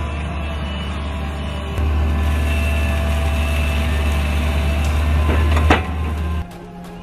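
Hydraulic excavator's diesel engine running steadily while it dumps cinder, louder about two seconds in, with a sharp knock near the end. The engine sound stops abruptly just before the end, leaving a much quieter background.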